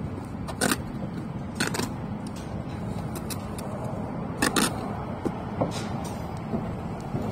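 Sharp clicks and scrapes of a steel brick trowel on bricks and mortar, about half a dozen spread out, the loudest a quick pair about four and a half seconds in, over a steady low rumble.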